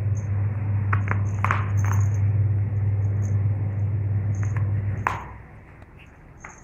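Steady low hum that cuts out about five seconds in. Over it, light clicks and brief high jingles from the metal charm on a playing cat's collar.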